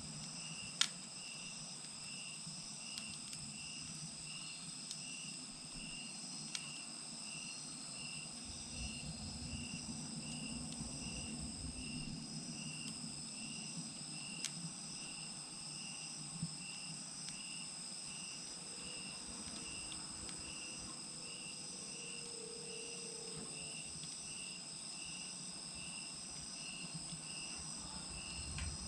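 Crickets chirping steadily, a regular pulsed chirp over a continuous high trill, with a few sharp pops from a wood fire burning in a clay chimenea, the loudest about a second in.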